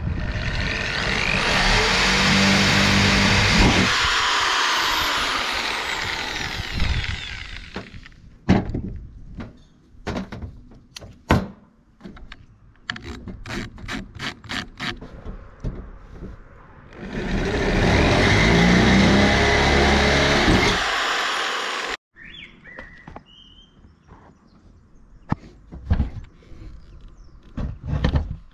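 Corded electric drill running under load as it drills through a van's sheet-metal roof. It runs for about seven seconds, stops, and runs again for about five seconds. Knocks and clicks from handling the drill come in between.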